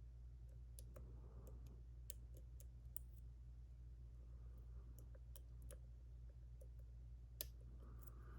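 Faint, irregular clicks of lock-picking tools working the pins and sidebar of a JPM Surf lock (six pins, five side pins), over a steady low hum.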